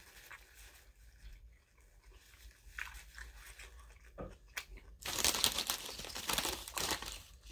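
Close-up eating sounds: a few faint mouth clicks of chewing, then about five seconds in a dense crunching and crinkling that lasts to the end.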